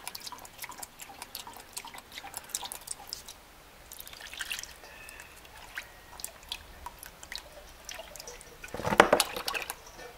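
Thin engine oil, heavily diluted with gasoline, dribbling in a thin stream into a plastic drain pan: a run of quick drips and patters, with a louder splash about nine seconds in.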